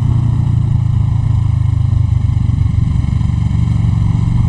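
Kawasaki Ninja 650R's parallel-twin engine running steadily, a loud low drone with no change in pitch.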